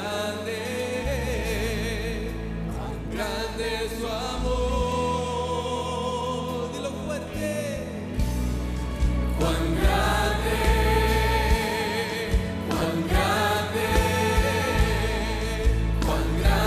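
Live worship band music: several voices singing together over sustained bass notes. From about eight seconds in the music gets louder, with a beat of regular sharp hits.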